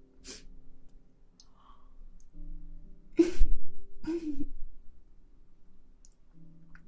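Two breathy sighs about three and four seconds in, with a fainter breath near the start, over quiet background music of held notes.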